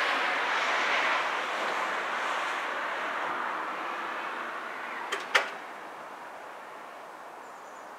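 A broad rushing noise that fades away over several seconds, with two sharp clicks a little after five seconds in.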